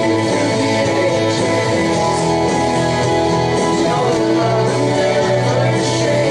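Live worship band playing with guitar and a singing voice, cymbal strokes keeping a steady beat.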